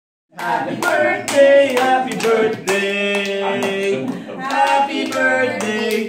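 Several family voices singing a birthday song, with hands clapping along to the beat.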